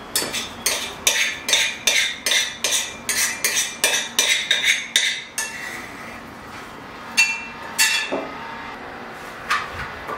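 A spoon scraping and knocking cooked oatmeal out of a saucepan into a ceramic bowl: quick clinks, about three a second for some five seconds, then a few separate clinks.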